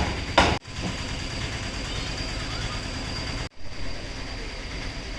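A vehicle engine idling steadily: a low, even rumble with a thin, steady high whine above it. The sound cuts out abruptly twice.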